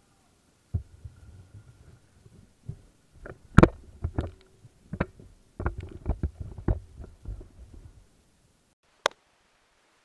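Irregular knocks, bumps and a low rumble from handling the Samsung vacuum cleaner, heard from inside its dust compartment while the hose is pushed into the inlet; the motor is not running. A single sharp click near the end.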